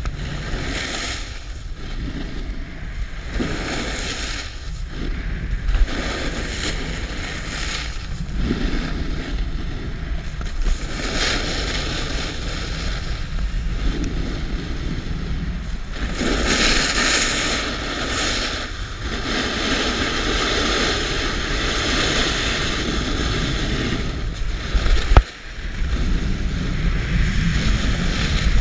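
Snowboard edges scraping and hissing over groomed snow as the rider carves turns, mixed with wind rushing over an action camera's microphone. The rush swells and fades every couple of seconds with the turns, with a sharp knock and a brief drop about 25 seconds in.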